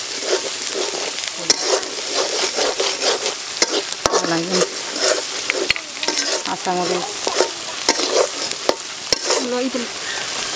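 A metal spatula stirring and scraping a spice paste frying in oil in an aluminium karahi, over a steady sizzle, with frequent sharp clicks and scrapes of the spatula against the pan.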